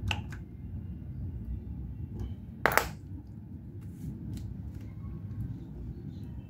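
Engine parts and tools being handled during assembly: a few light clicks and one louder sharp knock about two and three-quarter seconds in, over a steady low rumble.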